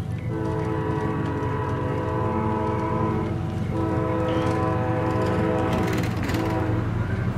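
Freight diesel locomotive's air horn sounding a steady chord in long blasts, with short breaks about three and six seconds in, over the low rumble of the approaching train.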